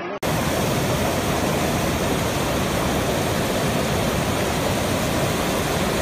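Steady rush of flowing water running over rocks, starting abruptly just after the start and staying even throughout.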